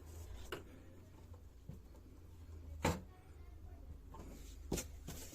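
Three sharp clicks or knocks spaced one to two seconds apart, the middle one loudest, over a low steady hum.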